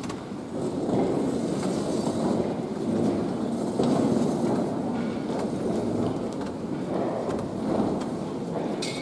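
Chairs and music stands being moved and set up, a continuous shuffling and scraping rumble in a reverberant church hall.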